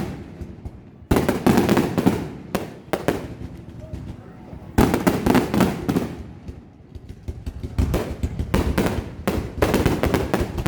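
Fireworks going off in rapid crackling barrages of cracks and pops. One barrage starts suddenly about a second in, another just before the middle, and a third near the end.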